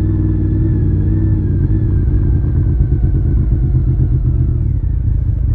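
Exhaust of a Honda VFR's V4 engine through a home-built muffler, running steadily at low revs as the bike rolls slowly along; a deep, even exhaust note.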